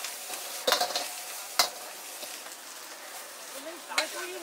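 Greens stir-frying in a hot wok with a steady sizzle, while a metal ladle scrapes and knocks against the wok: sharp clanks about a second in, again a moment later, and once near the end.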